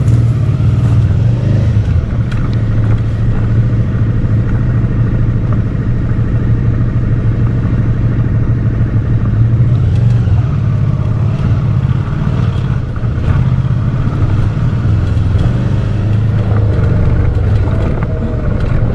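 Dual-sport motorcycle engine running steadily as the bike rides along, its pitch wavering a little with the throttle.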